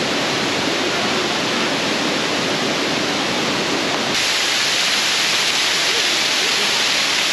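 Bridal Veil Falls, a tall waterfall, rushing steadily. About four seconds in, the sound jumps to a brighter, slightly louder hiss of falling water close by.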